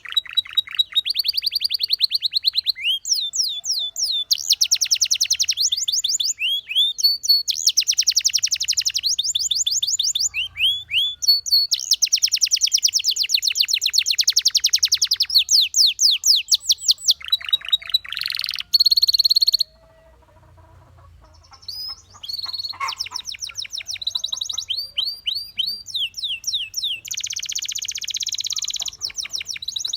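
Domestic canary singing: fast rolling trills of repeated notes alternating with rising and falling whistled sweeps, with a short pause a little past the middle before the song picks up again.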